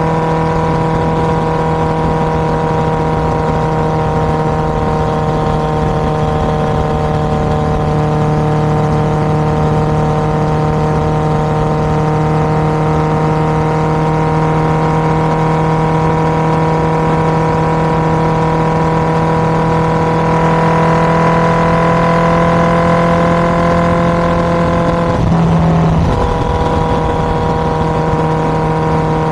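Honda CBR1000RR inline-four engine running through an SC-Project aftermarket exhaust, held at a steady note. The pitch creeps slightly up about two-thirds of the way through, breaks briefly near the end, then settles back to the same steady note.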